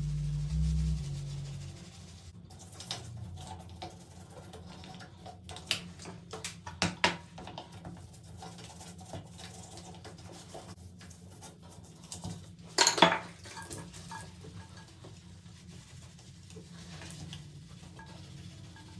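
Toothbrush and gloved fingers scrubbing a chrome shower valve trim plate: a faint scrubbing hiss broken by scattered clicks and taps on the metal, with one sharp clatter past the middle.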